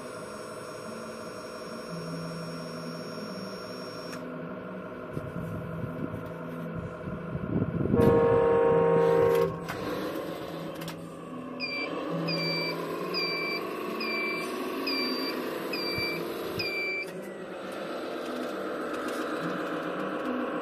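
RC Iveco Trakker truck's sound module playing a simulated diesel engine running, with one loud horn blast about eight seconds in. After that, a reversing beeper sounds about eight times in a steady rhythm as the truck backs up.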